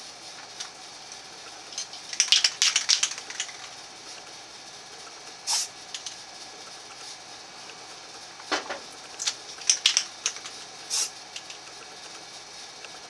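Aerosol spray-paint can hissing in short bursts through a mesh camo stencil: a run of quick taps about two to three seconds in, single longer sprays near five and a half and eleven seconds, and another run around nine to ten seconds. A brief rustle of the stencil being handled comes about eight and a half seconds in.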